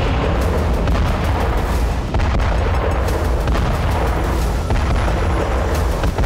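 Dramatic music over a continuous deep rumble of explosion-like booms, with a few sharp hits among them.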